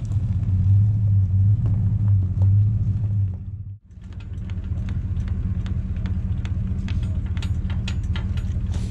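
Pickup truck engine running as the truck reverses. After a cut about four seconds in, it idles steadily under a run of light metal clicks and knocks from the boat trailer's tongue jack and hitch being worked.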